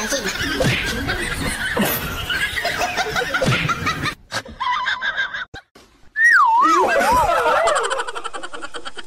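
A person laughing for about four seconds. After a cut, a loud high wavering tone that wobbles about three times a second as it falls in pitch, then a fast, even rattle near the end.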